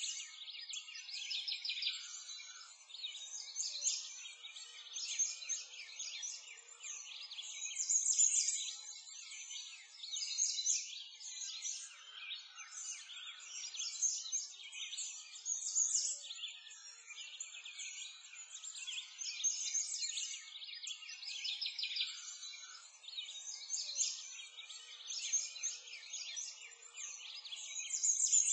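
Birdsong ambience: many small birds chirping and trilling over one another without a break, swelling and fading every few seconds.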